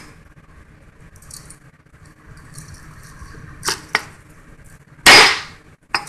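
Large kitchen knife chopping a cooked Cornish game hen on a plastic cutting board: sharp knocks of the blade hitting the board, two close together, then the loudest and longest chop about five seconds in, and one more just before the end.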